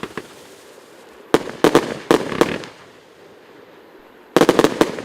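Lesli 'Morse Code' firework going off in short clusters of rapid sharp bangs: a quick run of clusters starting about a second and a half in, then another cluster near the end.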